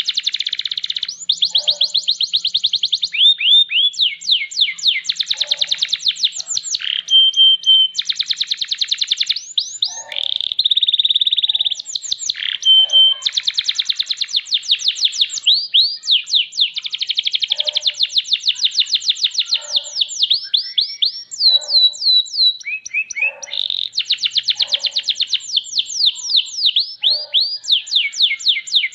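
Domestic canary singing a long, almost unbroken song of rapid trills, quick sweeping notes and short held rolls.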